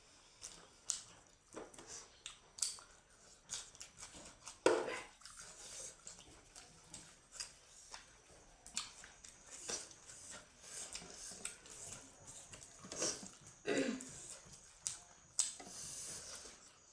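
Close-up eating sounds: smoked pork being chewed, with irregular wet smacks and clicks of the mouth and a couple of louder gulps or slurps.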